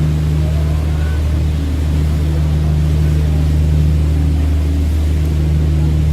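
Sightseeing cruise boat's engine running with a steady low drone, heard on board over a light hiss of water and air.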